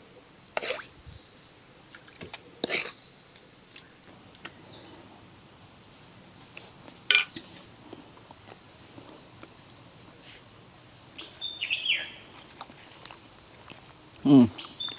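Birds chirping in the background, with a few sharp taps, the loudest about seven seconds in, and a short vocal sound near the end.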